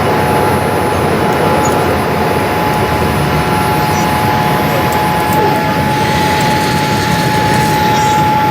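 Cabin noise aboard a Boeing 787-8 Dreamliner: the steady rush of the jet engines and airflow, with a steady high whine over it.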